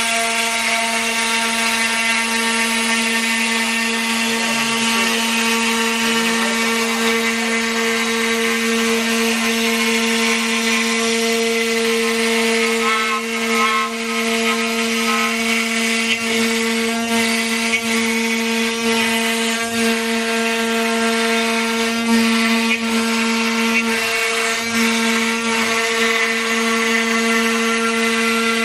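CNC router spindle running at high speed, its end mill cutting a groove in plywood: a steady whine over the rasp of the cut. The pitch and level waver slightly in the middle as the bit moves through the wood.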